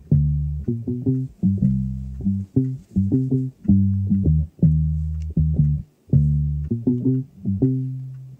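Background music: a plucked bass-guitar line of long held low notes broken up by quick runs of short notes.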